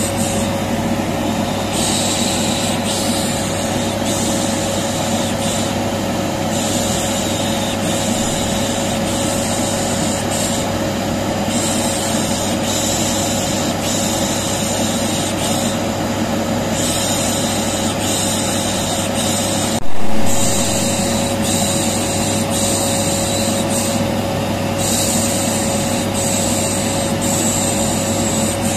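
Vacuum cleaner running steadily with a constant hum. Over it, repeated 'shh shh' shushing hisses come and go every second or two, a soothing sound used to calm a colicky baby. A single sharp click about twenty seconds in.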